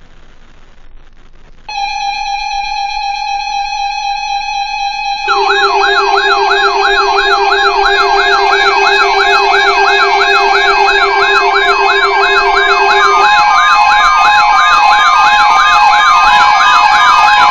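Electronic sirens after a moment of faint static. A steady electronic tone starts about two seconds in. At about five seconds several fast-warbling siren tones and a lower steady tone join it, and the sound grows louder. The lower tone drops out about two-thirds of the way through.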